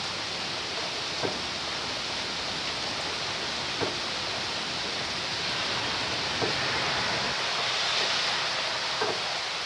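Steady rain falling, an even hiss, with four short taps spaced about two and a half seconds apart.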